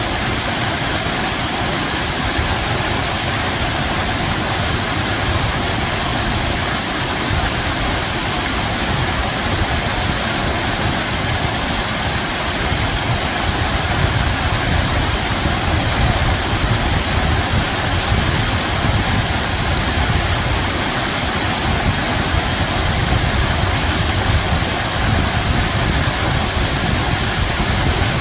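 Running water rushing steadily, with a deep low rumble underneath.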